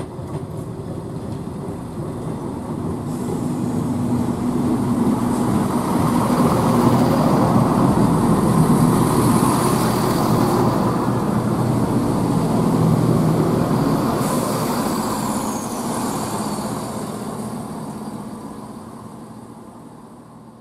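CrossCountry Class 170 Turbostar diesel multiple unit running past along the platform: engine drone and wheel-on-rail rumble grow louder, peak around the middle and fade away toward the end, with a faint high squeal from the wheels partway through.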